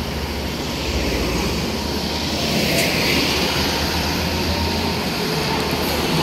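Heavy road traffic passing close by: trucks and pickups with a steady low engine rumble, and tyre noise that swells as a vehicle goes past about three seconds in.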